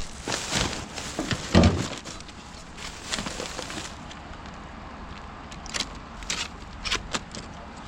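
Rummaging through bagged rubbish: rustling and clattering of items being handled, with a heavy thump about a second and a half in and scattered sharp knocks later.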